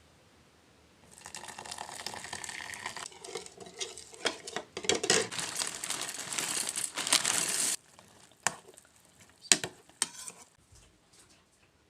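Kitchen sounds: a steady hiss like food frying, mixed with clicks and scrapes of utensils and dishes, that cuts off abruptly about two thirds of the way in. A few scattered clinks and knocks follow.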